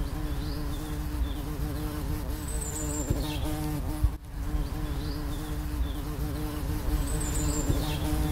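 Bees buzzing in a steady, even hum, a looped recording that repeats every few seconds with a brief dropout about four seconds in.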